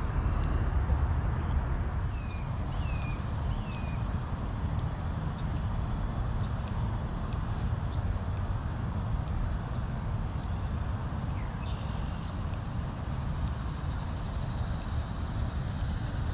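Outdoor lakeside ambience: a steady low rumble, with a few short falling bird chirps about two to four seconds in and a faint high insect buzz.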